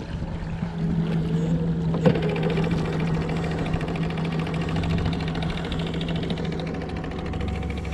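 Small outboard motor running steadily at trolling speed, a constant low hum. A sharp click about two seconds in, then a fast fine ticking over the hum.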